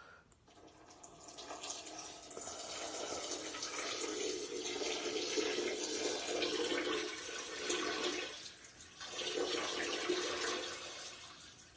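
A man urinating into a toilet bowl: a steady splashing stream that starts about half a second in, breaks off briefly about eight seconds in, then resumes.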